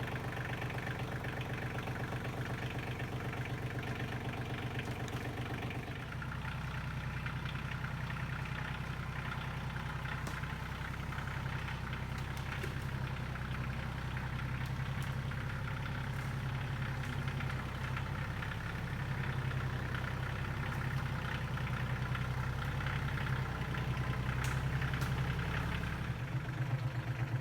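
Tractor engine running steadily. Its note shifts lower about six seconds in and changes again near the end.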